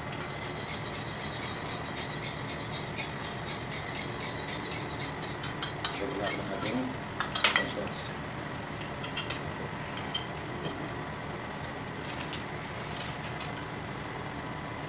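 Metal spoon stirring in an aluminium pot of carrots in tomato sauce, clinking and scraping against the pot. The clinks bunch up about halfway through, loudest a little past the middle, over a steady background hiss.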